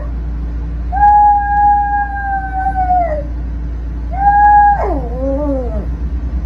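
Small dog howling in long, steady high notes that sag at the end of each: a full howl about a second in, and another about four seconds in that breaks into a wavering, falling cry and is cut short as a cat clamps onto the dog. A steady low hum runs underneath.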